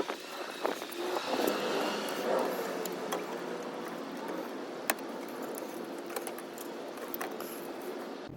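Scattered light clicks and knocks of hands working coolant hoses onto a new plastic thermostat housing in a car's engine bay, with a faint steady hum behind.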